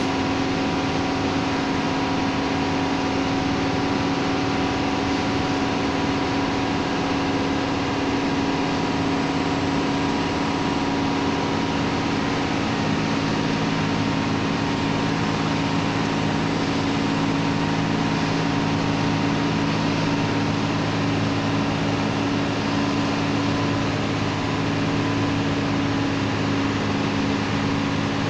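An old truck's diesel engine pulling steadily in a low gear up a hill, heard from inside the cab. The drone holds an even level, shifting slightly in pitch about halfway through.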